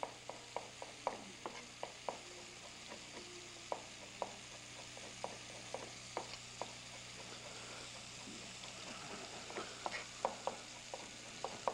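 Chef's knife chopping fresh oregano on a cutting board, irregular sharp taps that come faster near the end, over the steady sizzle of seasoned meat searing in a hot pan.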